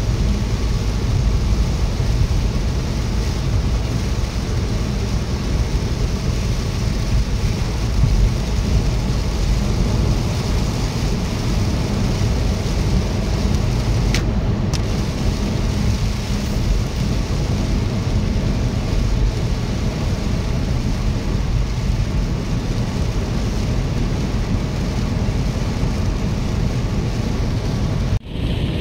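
Steady in-cabin road noise of a car driving on a rain-soaked highway in heavy rain: a deep rumble of tyres and engine under a hiss of rain and spray. It cuts out briefly near the end.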